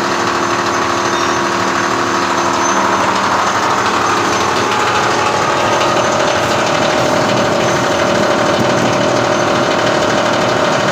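Stainless-steel herb crushing machine running steadily, grinding cut lemongrass to powder through a 2.5 mm sieve: a loud, continuous mechanical whir with a steady motor hum.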